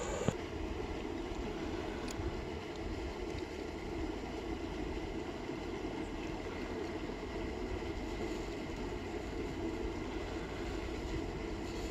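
Steady, even background noise with no distinct events, after a single short click just after the start.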